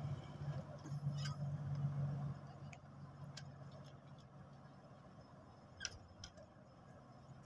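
A heavy engine running with a steady low drone that is stronger for the first two seconds and then fades, with a few sharp clicks scattered through it.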